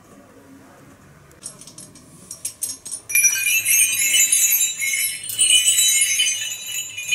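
Small brass bells on hanging harness straps, shaken by hand. A few light clinks about a second and a half in, then a loud, dense jingling from about three seconds in.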